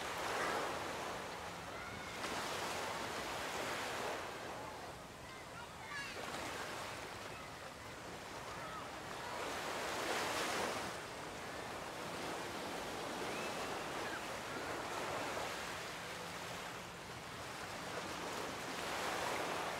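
Ocean surf washing onto a beach, swelling and fading every few seconds, loudest about halfway through.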